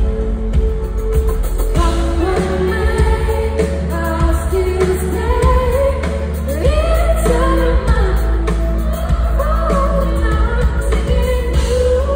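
Live pop song performance: a woman singing over a band with a strong, steady bass. The voice comes in about two seconds in.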